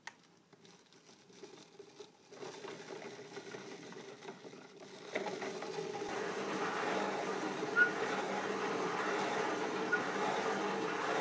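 Electric motor spinning a carved pumpkin on a turntable, a steady whir that comes up in speed and grows louder about two seconds in and again about five seconds in. A sharp tick stands out near the middle.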